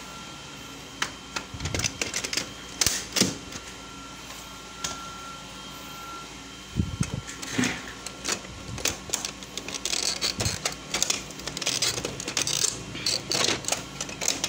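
Plastic toner cartridges being handled and pushed back into the toner bay of a Kyocera Ecosys M6630 colour laser printer: irregular plastic clicks, knocks and scraping. They come in a short cluster about a second and a half in, then again more densely from about seven seconds on.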